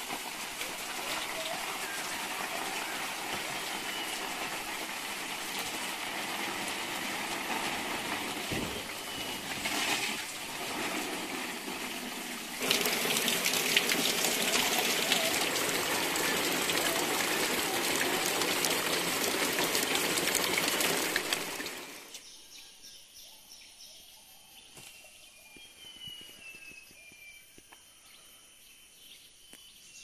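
Small hill stream running, louder from about halfway in, then cutting off suddenly. Afterwards faint birds give a few falling whistled calls over a steady high insect whine.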